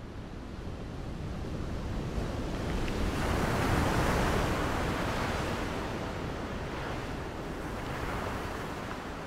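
Ocean surf breaking over rocks. A wave swells to a crash about three to four seconds in, then washes back and slowly fades, with a smaller swell near the end.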